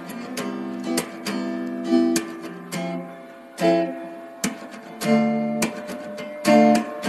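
Background music: acoustic guitar played in strummed and plucked chords.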